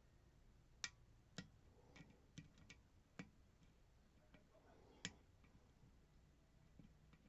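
Lock pick working the pins inside a Robur lock: faint, irregular metallic clicks, about seven of them, the sharpest about one second and five seconds in.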